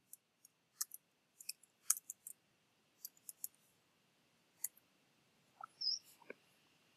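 Computer keyboard keys clicking in short, irregular runs of taps as text is typed, faint, with a slightly fuller click a little before the end.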